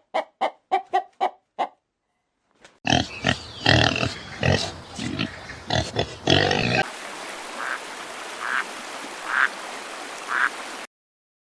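Pigs grunting and squealing in a dense run of loud calls, preceded by a quick series of about seven short calls. After that the pig calls give way to a steady hiss with a few faint short calls, then silence.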